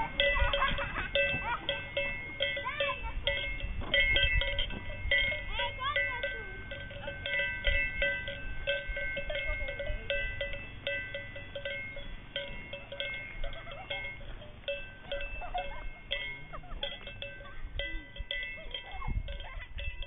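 Many livestock bells clanking irregularly at several fixed pitches, as from a grazing flock or herd, growing fainter toward the end.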